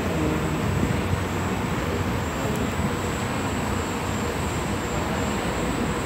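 Steady running noise of a train moving along the track, heard from inside the carriage.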